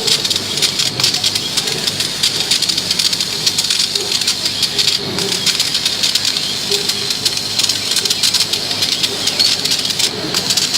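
80 W CO2 laser cutting machine at work cutting 5 mm rubber: a steady hiss with dense, fast crackling throughout and shifting lower tones from the machine.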